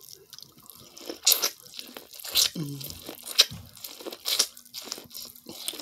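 A person biting kernels off an ear of corn on the cob and chewing: four loud bites about a second apart, with chewing between them.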